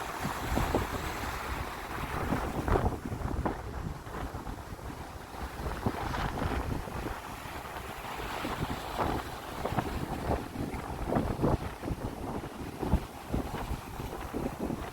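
Sea waves washing and splashing, with wind buffeting the microphone.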